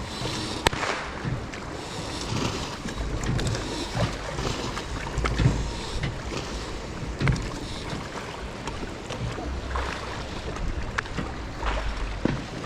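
Wind buffeting the microphone and water splashing against a fishing boat's hull, with gusty low rumbles and a few small knocks, one sharp click near the start.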